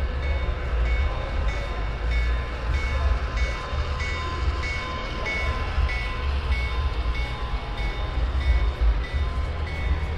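HO scale model train of hopper cars rolling past on the layout, over a steady low rumble, with a high ding repeating about twice a second.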